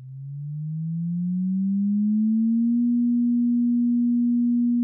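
A single electronic tone that fades in, glides up in pitch over the first two and a half seconds or so, then holds steady.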